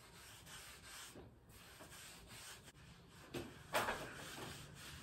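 Velour fake-tan application mitt rubbing over skin in soft repeated strokes, with two louder swipes about three and a half seconds in.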